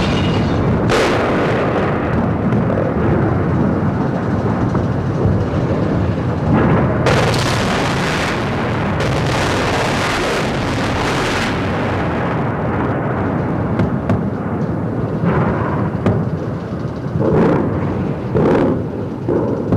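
Bombs exploding in an aerial bombardment: a continuous rumble broken by repeated loud blasts, one about a second in, a long run from about seven to eleven seconds, and several shorter ones near the end.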